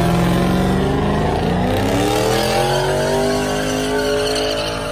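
Car engine revving hard in a burnout, its pitch climbing steeply from about halfway through and then holding high. The hiss of spinning tyres runs underneath.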